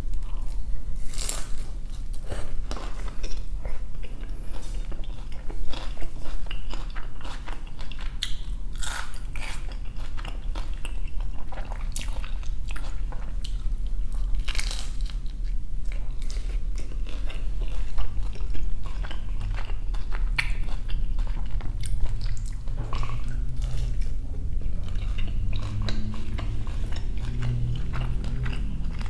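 Close-miked biting and chewing of crispy grilled quesobirria tacos: repeated sharp crunches of the fried, cheese-crusted tortilla, most frequent in the first half, with chewing between them.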